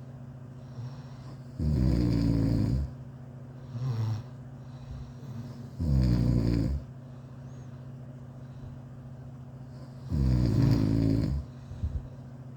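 A sleeping person snoring: three loud snores about four seconds apart, each lasting about a second, with quieter breaths in between.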